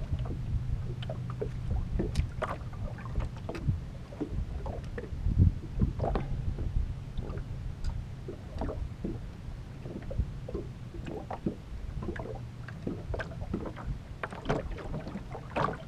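Small waves lapping and slapping irregularly against the hull of an aluminum fishing boat, over a low rumble. A faint steady hum runs through about the first half.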